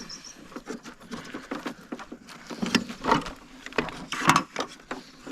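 Irregular plastic clicks and knocks as the main cable is forced out of a Starlink dish's housing, with the two loudest knocks about three seconds in and just after four seconds.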